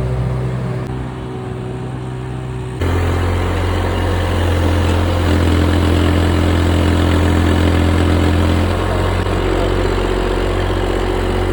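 Excavator's diesel engine running steadily, stepping up to a louder, heavier note about three seconds in and holding there under load.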